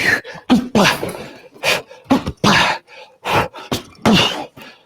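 Punches striking a bag in an alternating light-then-hard rhythm, about one a second. Each strike comes with a sharp, forceful exhaled grunt.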